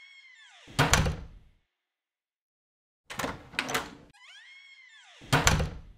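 Door creaking on its hinges with a squeal that rises and falls in pitch, ending in a heavy thud. After a pause come two sharp knocks, then the same creak and thud again.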